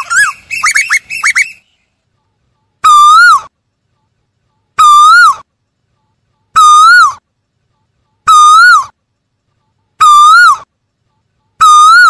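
Asian koel calling: a rapid string of short rising-and-falling notes that breaks off about a second and a half in, then after a short pause the same loud whistled 'ko-el' note, rising and then falling, repeated evenly about every 1.7 s, six times.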